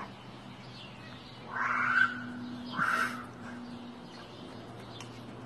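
Two loud, harsh animal calls about a second apart, the first longer than the second.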